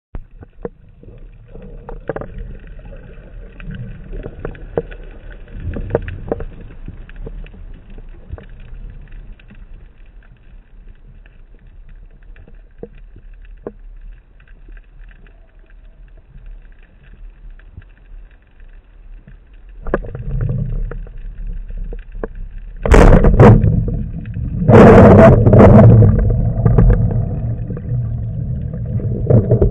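Underwater noise picked up through a speargun-mounted camera on a freedive: a low rumble with scattered faint clicks, then louder water noise from about two-thirds of the way in, with two loud rushing, gurgling bursts near the end.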